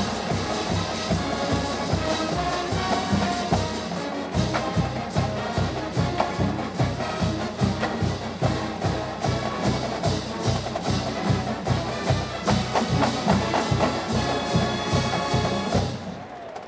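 College marching band playing: sousaphones, trumpets and saxophones over drums with a steady beat. The music breaks off just before the end.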